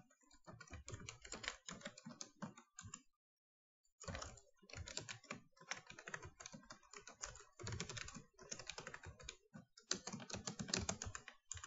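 Computer keyboard typing: quick runs of keystrokes, with a pause of about a second around three seconds in.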